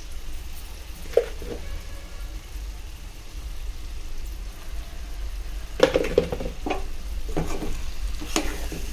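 Steel ladle stirring and scraping brinjal and potato pieces against an aluminium pot, in irregular clattering strokes through the second half, over the faint sizzle of the vegetables frying in oil. A single sharp click comes about a second in, and a steady low hum runs underneath.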